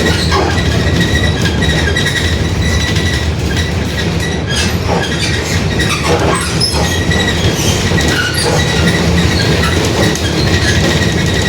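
Mercedes-Benz OF-1721 BlueTec 5 city bus under way, heard from inside: a steady low drone of the diesel engine and drivetrain with a faint steady high whine. The whine fits the growling differential the uploader points out. Scattered rattles and clicks come through around the middle.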